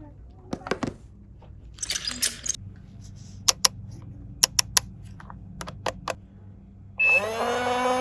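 Plastic toy pieces being handled, giving scattered sharp clicks and taps and a brief rustle. About seven seconds in, a loud electronic hum starts with a short upward swoop, with short high beeps about once a second.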